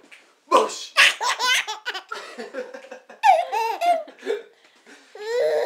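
A baby belly-laughing in three bouts of high, wavering laughs, the longest near the start and a last short one near the end.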